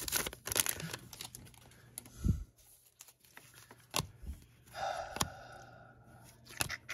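Trading cards and their foil pack being handled: soft rustling and sliding with scattered small clicks and taps as cards are flipped through one by one, and a dull thump a little after two seconds in.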